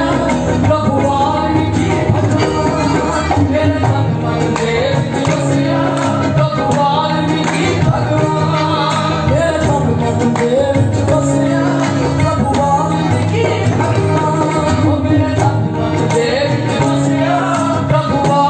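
A woman singing a devotional shabad into a microphone, accompanied by harmonium with steady held notes and a regular hand-percussion beat.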